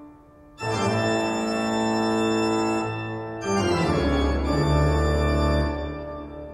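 Background music of held organ chords. A chord comes in about half a second in, a new one replaces it a little past the middle, and it fades away near the end.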